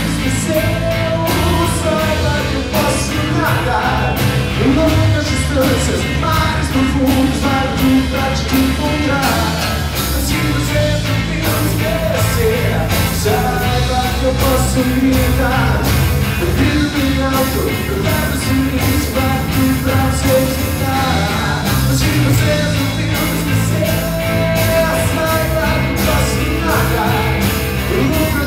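A live rock band playing: drum kit, bass guitar and two electric guitars, with a melodic line wavering over the steady beat.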